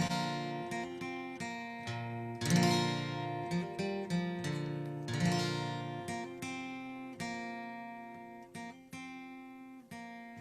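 Acoustic guitar playing a song's opening: full chords strummed three times a couple of seconds apart and left to ring and fade, with lighter picked notes in between and trailing off toward the end.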